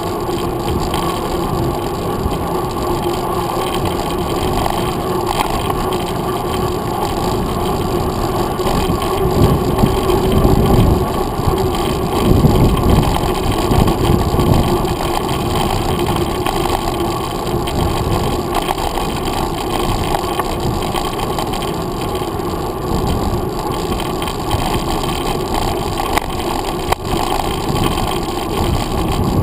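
Wind rush and rolling tyre-and-road rumble from a mountain bike riding on a paved trail, picked up by a handlebar-mounted camera, with a few stronger low surges about ten seconds in.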